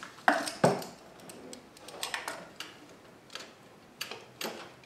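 Metal hand tools clinking and clacking against metal as a wire is fastened back onto the alternator's positive terminal post: two sharp clanks near the start, then lighter scattered clicks.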